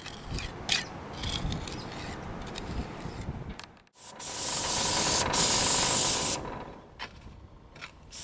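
A trowel scrapes and rubs flexible pointing compound along concrete ridge capping tiles, with scattered small clicks. About four seconds in this gives way to the loud, steady hiss of a spray wand spraying sealant onto the concrete roof tiles for a couple of seconds before it stops.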